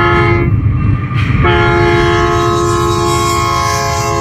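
Union Pacific 6515's air horn sounding for the grade crossing: a blast ending about half a second in, then a long steady blast from about a second and a half in. The locomotive's diesel engines rumble underneath.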